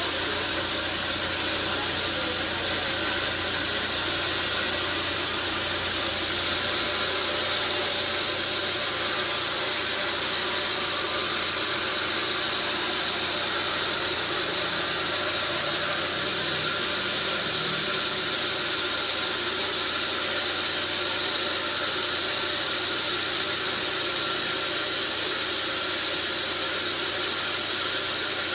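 Sawmill saw machinery running steadily: a constant, even hiss over a low hum, with no pauses or breaks.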